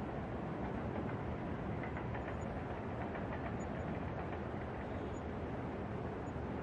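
New York subway station ambience: a steady low rumble of a subway train, with a few faint high ticks about two to three seconds in.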